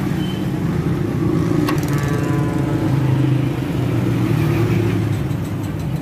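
Steady rumble of street traffic from passing vehicle engines, with a single sharp click a little under two seconds in.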